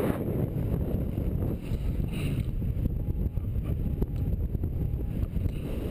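Airflow buffeting the camera's microphone in flight under a paraglider: a steady, gusting low rumble, with a few faint short beeps near the end.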